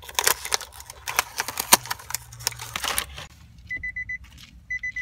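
Crackling rustle of a plastic shopping bag and a small cardboard box being handled, then a Nissan car's door-open warning chime beeping twice, about a second apart.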